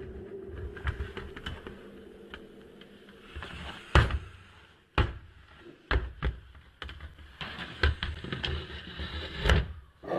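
Handling noise: scattered clicks and knocks of a plastic action figure being moved about by hand against a plastic toolbox, with a few sharper knocks in the second half. A faint low hum fades out after about two seconds.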